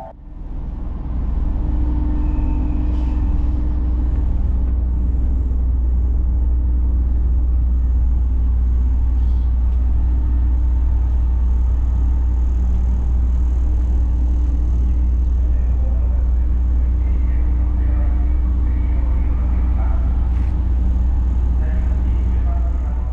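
Ferry's engines running with a steady, even low rumble and a faint hum over it.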